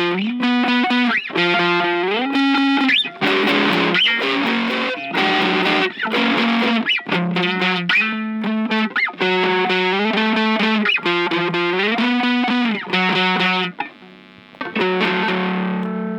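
Music: a distorted electric guitar playing a riff of chords and notes with sliding pitch bends, then a held chord that slowly fades near the end.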